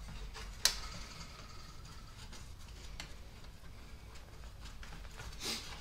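A few light, sharp clicks of metal against a brass trumpet bell as it is handled during dent work, the loudest about two-thirds of a second in and another about three seconds in, over quiet room tone.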